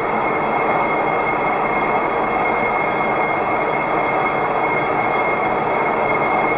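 Metal lathe running with its cutting tool facing a steel disc, the cutter chewing through the metal and patches of rust: a steady, dense cutting noise with a constant high whine.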